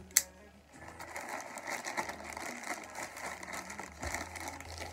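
Plastic mailer bag crinkling and rustling in rapid crackles as it is handled and pulled open, after a single sharp click just after the start.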